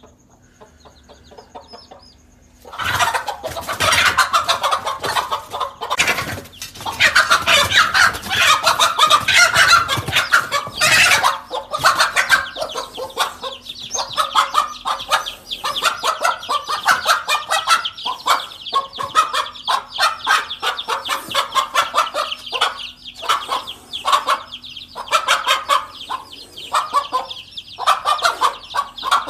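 A hen clucking and cackling loudly in rapid repeated calls, starting about three seconds in and most intense over the next several seconds, then going on as quick, sharp calls. This is a hen's alarm, raised at a cobra near her chicks.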